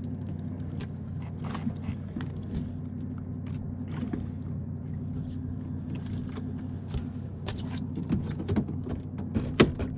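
Electric trolling motor humming steadily in anchor mode, holding the boat in place, with scattered clicks and knocks that come more often near the end.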